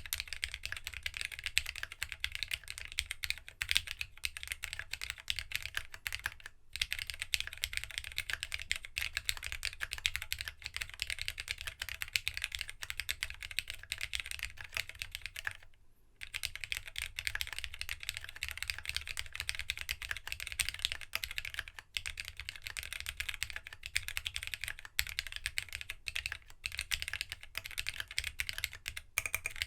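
Fast continuous typing on a plateless GEONWORKS W1-AT mechanical keyboard with no foam, fitted with TOHSI GSA-profile keycaps: a dense run of keystroke clicks. The typing pauses briefly twice, about a third of the way in and about halfway through.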